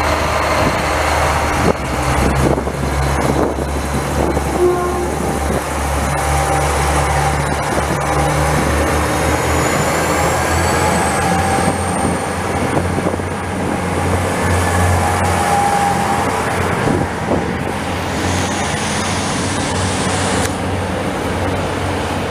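Translink NI Railways diesel multiple unit pulling slowly away from the platform close by: a steady low diesel engine drone and rail rumble, with a faint high whine rising about ten seconds in.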